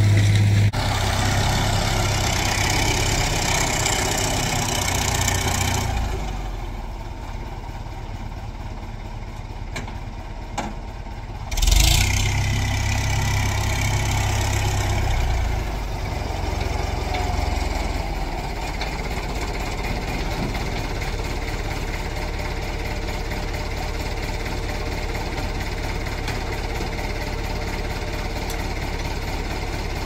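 Farm tractor engines running. A louder machine runs for the first few seconds; after a sudden loud change about twelve seconds in, a tractor engine idles steadily.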